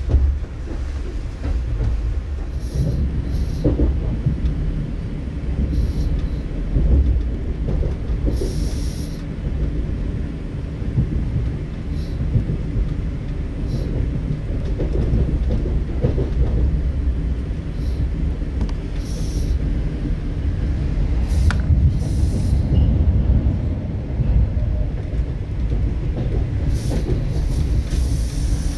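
ES2G "Lastochka" (Siemens Desiro RUS) electric multiple unit running between stations: a steady rumble of wheels on rail, with brief hissing bursts now and then.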